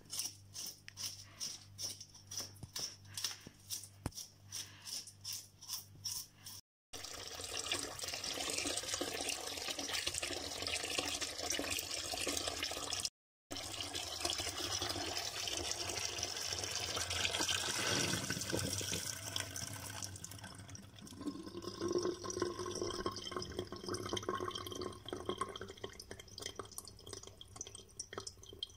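Water sloshing in a rhythm of about three strokes a second as hands wash whole tilapia in a basin of water. Then, after a cut, a kitchen tap runs steadily, splashing onto the fish in a stainless-steel sink.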